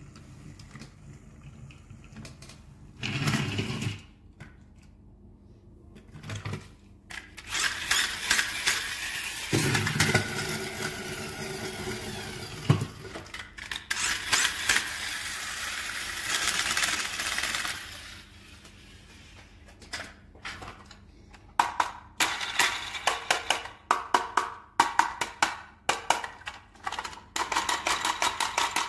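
Plastic toy vehicles being handled and moved on a tabletop: a long stretch of rattling in the middle, then a rapid run of sharp plastic clicks near the end.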